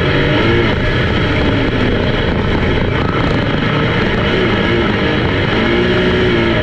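Race car engines running on the track, several cars at once, their pitch rising and falling as they rev and pass.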